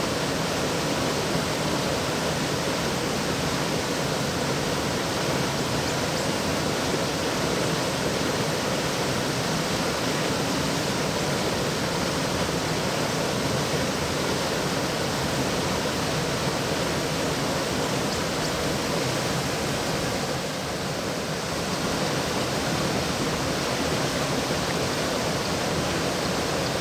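Steady rushing of river water flowing over a weir or causeway, a continuous even roar with a brief slight dip around three quarters of the way through.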